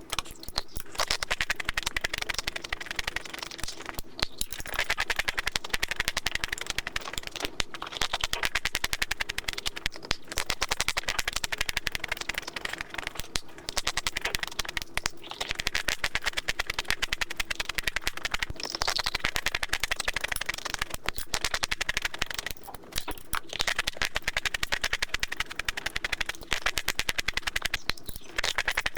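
Crisp chocolate crunching, close up, as it is chewed: dense rapid crackling broken by short pauses every few seconds.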